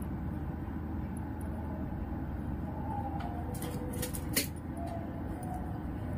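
Steady low background rumble and hum, with a few faint clicks about three and a half to four and a half seconds in.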